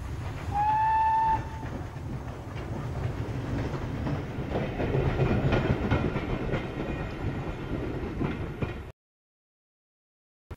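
Train sound effect: a short single-note train whistle about half a second in, then the rumbling, rattling run of a train that grows louder and cuts off suddenly near the end.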